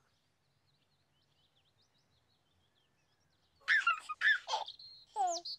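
Near silence with faint bird chirps, then about three and a half seconds in a baby giggles and laughs in short bursts.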